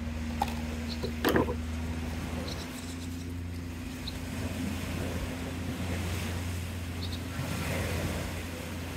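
Steady low hum in the background, with one sharp snip of scissors cutting nylon trimmer line about a second in, then light clicks and rustles of the plastic line and spool being handled.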